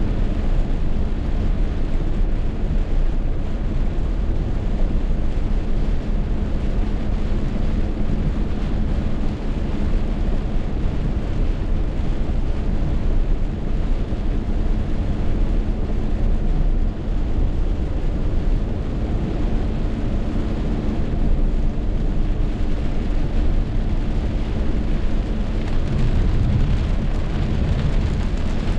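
Heavy rainstorm: a steady, loud wash of rain and wind noise with a deep low rumble.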